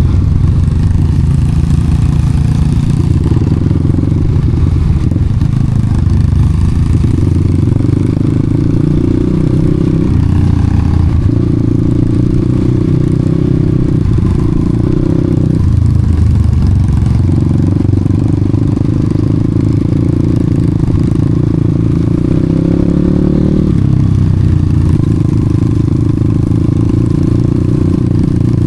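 Enduro dirt bike engine running under load while being ridden, its revs rising and falling every few seconds.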